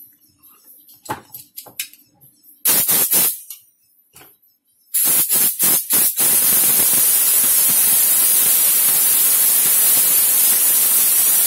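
Compressed air hissing out of a homemade compressor's pressure tank, fed by an old refrigerator compressor: a few light clicks, two short loud blasts, several quick spurts, then a long steady blast lasting several seconds. The air is being let out until the tank pressure drops and the compressor starts pumping again.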